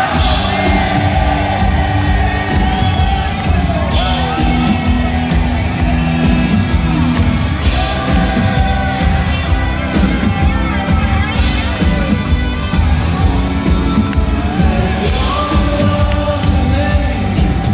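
Live rock band playing electric guitars over a steady beat, with singing and whoops from the crowd.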